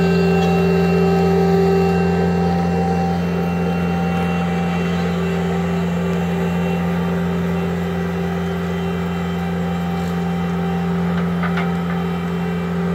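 Bobcat compact track loader's diesel engine running at a steady speed as the machine drives slowly forward.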